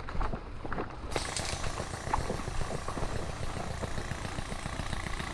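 Sustained rapid automatic airsoft fire, an airsoft minigun spraying cover fire into the wood line, as a steady fast buzz of shots that sets in about a second in.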